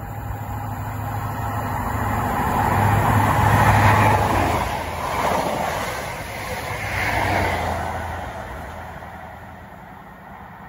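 Diesel train passing through at speed. Its engine hum and the rush of wheels and air swell as it nears, peak twice as the train goes by, then fade as it draws away.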